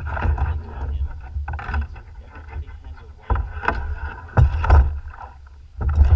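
Choppy lake water splashing and lapping against a plastic fishing kayak's hull in uneven surges, over a heavy low rumble of wind on the microphone.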